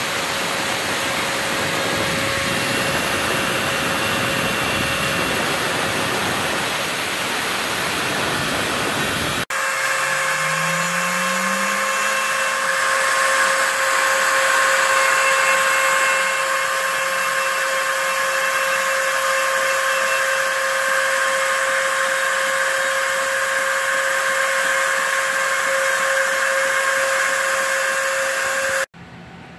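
Home-built CNC mill's router spindle running steadily while cutting refractory plaster, with the vacuum dust extraction at the cutter running alongside; a steady whine over a broad hiss. About a third of the way in a deep rumble drops out, and near the end the noise cuts off abruptly to a faint hum.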